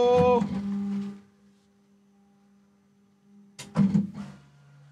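Bambu Lab X1 Carbon 3D printer's stepper motors humming at steady fixed pitches at the start of its calibration. The tone is loud for about a second, then drops to a faint hum. A click follows just before the end, then a lower steady tone.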